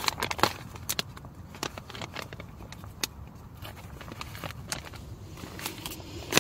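Crinkling and rustling of a freeze-dried meal pouch as it is closed and handled, a scatter of irregular sharp clicks and crackles.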